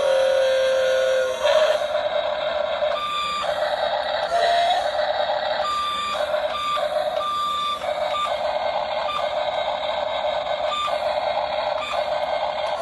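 Whine of a radio-controlled model excavator's small electric motors, starting and stopping as it works. Short, steady high beeps break in and out several times.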